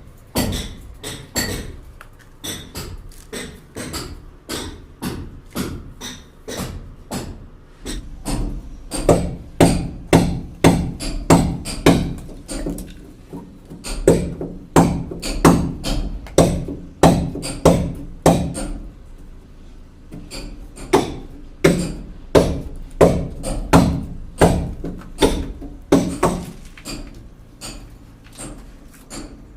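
Hammer blows struck one after another at about two a second, in runs with short breaks between them.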